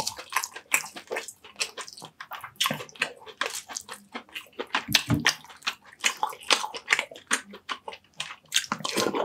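Close-miked wet chewing and lip-smacking of a person eating baked sea bass and rice, with many quick, irregular mouth smacks.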